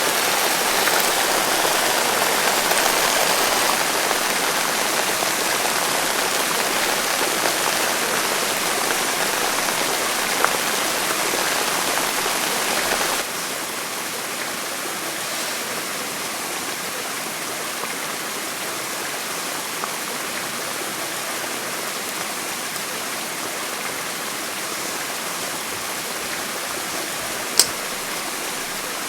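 Steady rushing noise like running water, dropping to a lower level about 13 seconds in, with a single sharp click near the end.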